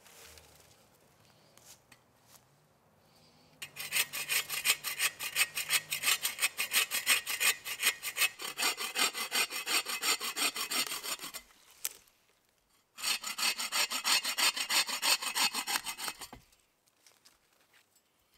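Agawa Canyon Boreal21 folding bow saw cutting through a thin dead branch in quick, even strokes. A long bout of sawing starts about four seconds in; after a pause of about a second and a half, a shorter bout runs until the branch is cut through.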